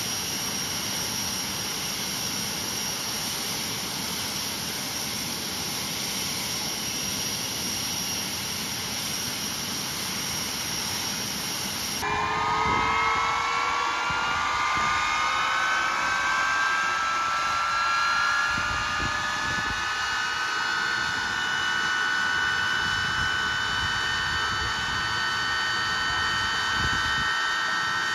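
TS-11 Iskra's turbojet engine running on the ground with a steady rushing noise and a high whine. About twelve seconds in the sound changes abruptly and gets a little louder, and a cluster of whining tones climbs slowly in pitch as the engine gains speed.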